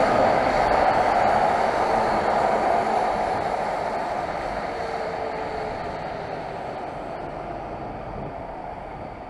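Road traffic on a wet street heard from a bicycle riding right beside lorries: a steady rushing noise of tyres and engines. It is loudest at first and fades gradually as the lorries draw away.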